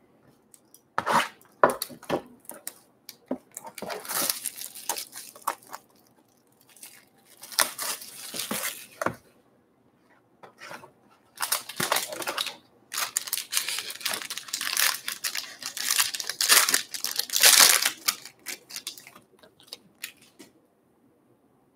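Trading card packaging being torn open and crinkled: a run of short rustling, tearing bursts with small clicks, stopping shortly before the end.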